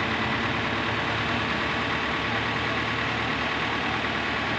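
Tractor diesel engine running steadily, driving the hydraulic tipper that raises the loaded trolley bed to dump its soil.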